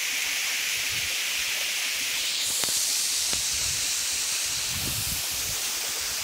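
Waterfall rushing: a steady hiss of falling water, with a couple of faint clicks and some low rumbles about five seconds in.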